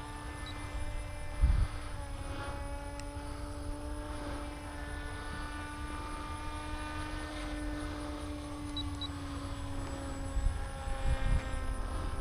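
Brushless 3536/5 electric motor and propeller of an FPV flying wing running at a steady cruise throttle, its whine holding one pitch with small dips and drifts, over a low rumble of wind noise.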